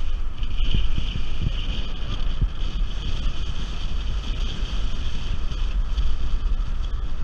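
Wind buffeting the microphone of a camera mounted on the outside of a moving car: a steady low rumble with small irregular thumps and a hiss of air and road noise.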